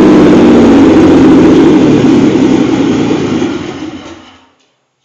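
Nissan 300ZX Twin Turbo's 3.0-litre twin-turbo V6 running rough on an open exhaust, then dying out, its sound fading away over about two seconds until it stops. The stall follows plugging the mass airflow sensor back in while the engine runs in safety mode.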